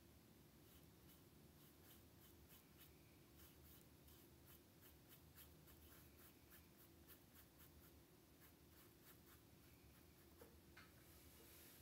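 Faint, quick strokes of a thin paintbrush dabbing acrylic paint onto canvas, several strokes a second, over a low steady room hum.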